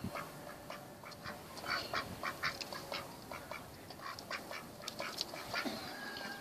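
Mallard drake calling in a run of short quacks.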